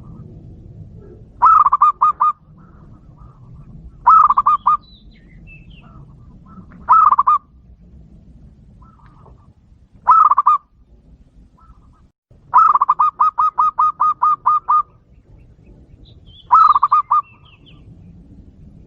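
Zebra dove (perkutut) cooing: six phrases of quick, pulsed coos, each under a second, and one longer run of about a dozen notes a little past the middle. Faint chirps of other small birds come between the phrases.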